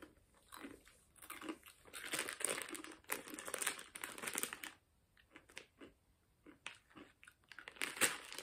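A crunchy noodle snack being bitten and chewed, with its plastic packet crinkling in the hands. The crunching and crinkling are densest in the first half and thin to scattered crackles later.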